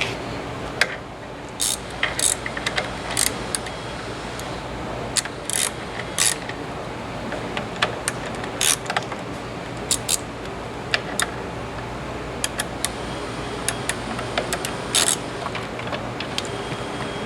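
Irregular metal clicks and clinks from a hand tool loosening the cylinder nuts on a filling machine, over a steady low hum.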